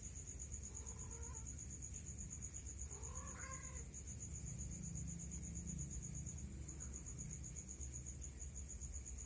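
A steady, high-pitched, rapidly pulsing trill of night insects, typical of crickets, with two short rising-and-falling animal calls about one and three seconds in.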